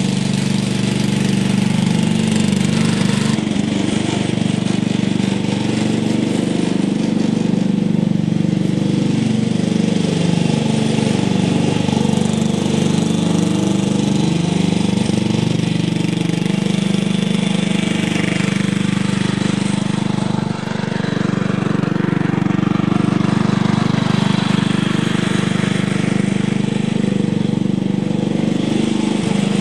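The 10 hp Briggs & Stratton single-cylinder engine of a 1980 Montgomery Ward lawn tractor, running steadily while the tractor is driven. It exhausts through a muffler with a small hole in it.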